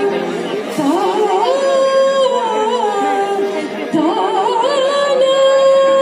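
Music: a woman singing long held notes that waver and slide between pitches.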